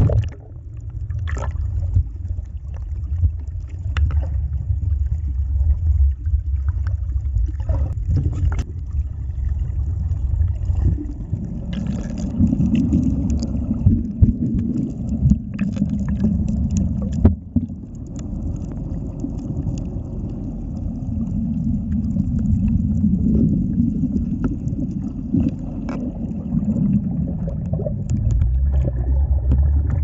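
Muffled low rumble and sloshing of water heard through an underwater camera's housing, with scattered sharp clicks and knocks.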